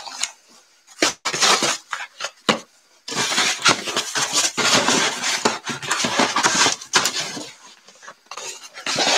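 Small cardboard boxes being handled and shifted on one another: a few separate knocks at first, then about four seconds of steady scraping, rattling and clicking, with a few more knocks near the end.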